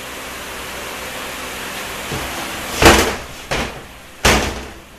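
A steady hiss of transmission fluid draining from the tipped case, then three heavy thuds, the first and loudest about three seconds in, as the 4R75E automatic transmission's aluminium case is rolled over and set down on the bench.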